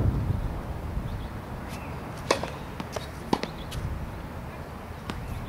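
Tennis ball impacts on an outdoor hard court: a few sharp, separate knocks, the two loudest about two and three seconds in. Wind rumbles on the microphone, strongest near the start.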